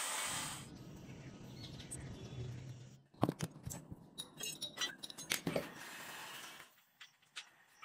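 A spinning abrasive wheel grinding the steel blade cuts off about half a second in. After a low rumble come a dozen sharp metallic clanks and clinks of rusty scrap steel being shifted, as a length of leaf spring is pulled from a scrap pile. The loudest clank comes about three seconds in.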